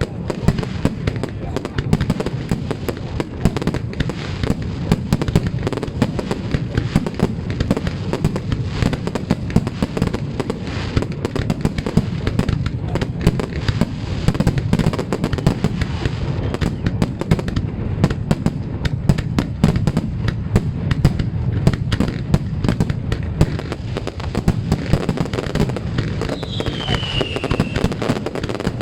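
Fireworks finale: a dense, continuous barrage of bangs and crackles from shells bursting many times a second, with a short falling whistle near the end.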